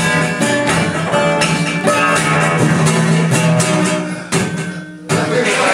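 Guitar playing a blues song live, strummed and plucked, with a short drop in the playing a little past four seconds in before it picks up again.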